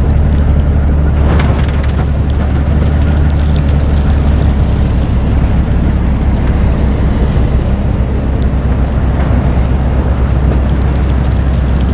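Railway snow blower running with a steady low drone, with a short rush of noise about a second in.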